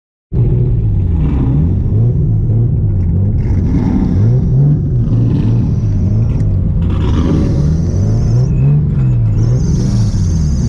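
Nissan R32 Skyline's RB-series inline-six engine running with its engine speed hunting up and down every second or two, cutting in abruptly after silence. It is an awful noise, which the owner traced to cheap worm clamps stretching on the main intake pipe into the throttle body.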